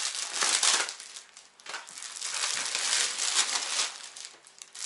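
Clear plastic garment packaging crinkling and rustling as it is handled, with a brief lull about a second and a half in.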